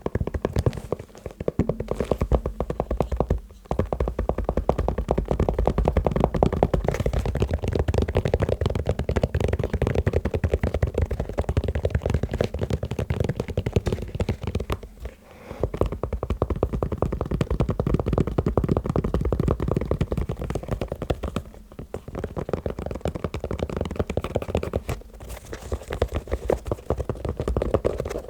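Fast, continuous tapping on shoes, many quick taps a second, stopping briefly a few times before carrying on.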